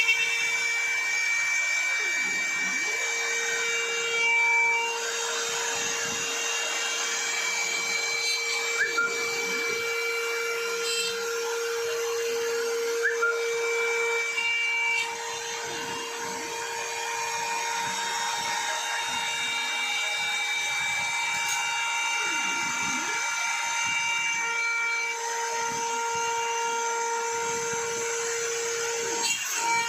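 CNC router spindle running at high speed with its bit cutting acrylic sheet: a steady whine over a hiss. The whine's pitch and strength shift slightly every few seconds as the cut goes on.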